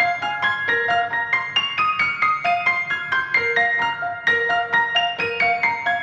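Background piano music: a steady run of quick single notes, several a second.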